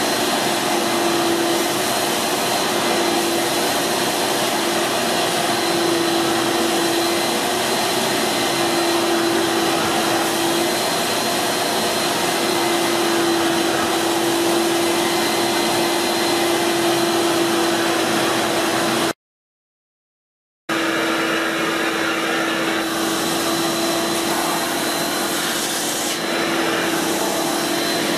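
Kärcher Puzzi 100 spray-extraction carpet cleaner's suction motor running steadily, a constant hum with a thin high whine over it. It cuts out completely for about a second and a half about two-thirds of the way through, then runs on as before.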